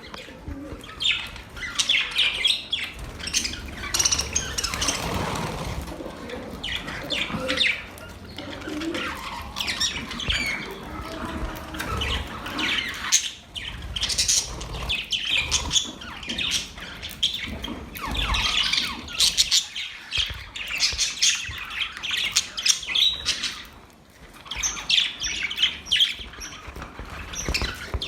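Budgerigars chirping and chattering almost without pause, in quick high calls, with low bumps and rustling now and then.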